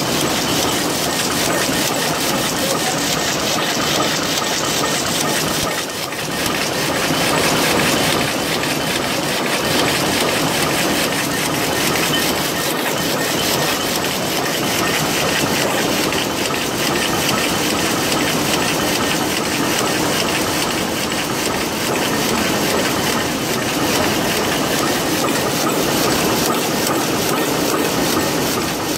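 Rapier weaving loom with electronic jacquard running at about 143 rpm in jacquard mode: a loud, steady, rapid mechanical clatter of the beating reed and rapier drive, repeating evenly throughout.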